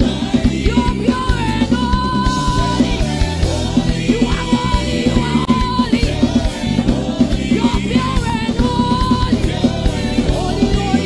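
Live gospel praise and worship music: women singing into microphones over a band with a fast, busy drum beat.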